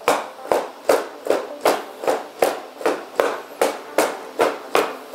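Unitree G1 humanoid robot walking in high-speed mode, its feet stomping on the floor in a steady beat of about two and a half steps a second.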